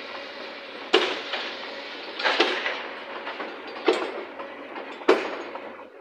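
Large excavator breaking up demolition rubble: four loud crashes of concrete and debris, roughly a second and a half apart, the second one a double hit, each ringing briefly.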